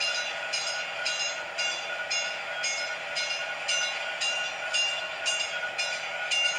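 Model train locomotive running along the layout track with a steady electric hum, over which a metallic ding repeats about twice a second.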